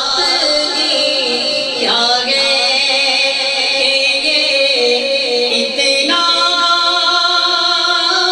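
A male naat reciter singing a naat into a microphone, in long held, ornamented notes, moving to a new note about two seconds in and again about six seconds in.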